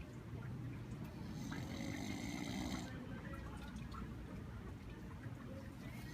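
A man snoring: a low, rattling snore runs throughout, with one breathy stretch about a second and a half in.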